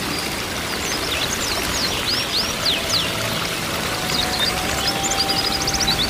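Waterfall rushing steadily, with many short high bird chirps over it, quick rising and falling notes in runs.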